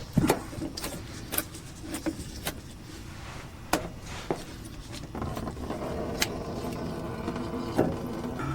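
Scattered sharp metal clicks and knocks of hand tools working the oil filter loose from under the engine. A steady hum starts about five seconds in.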